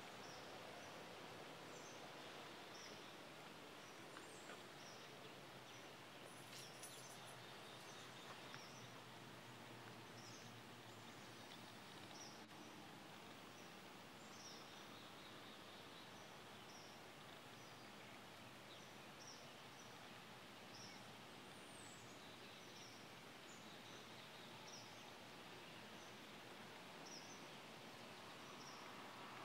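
Near silence: faint outdoor ambience, with a soft, high chirp repeating about once a second.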